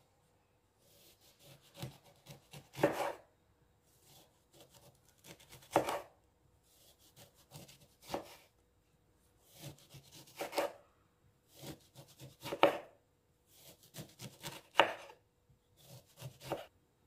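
Kitchen knife cutting food on a cutting board, in bursts of several strokes about every two to three seconds, each burst ending with a louder knock on the board.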